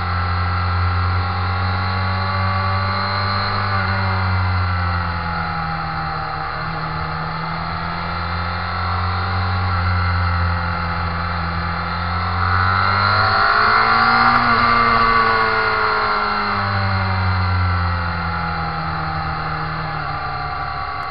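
Sport motorcycle engine running under way, heard from a camera mounted on the bike, its pitch rising and falling with the throttle. It climbs to its highest and loudest about two-thirds of the way through, then eases off.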